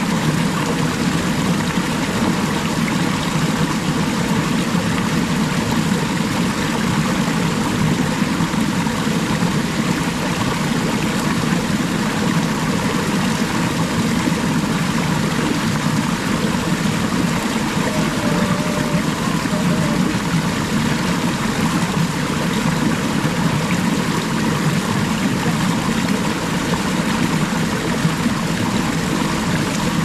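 Small rocky forest stream running over a little cascade close by: a steady, unbroken rush of water.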